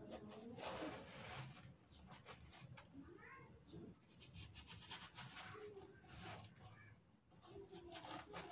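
Faint knife strokes through watermelon flesh on a wooden chopping board: a string of short slicing and scraping sounds as the fruit is cut into small pieces.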